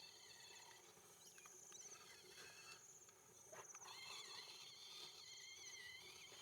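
Faint insects calling: several steady, high, finely pulsing trills overlapping.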